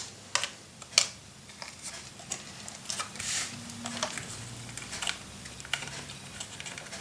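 Hands working cardstock and crafting tools on a table: scattered light clicks and taps, with a brief papery rustle about three seconds in.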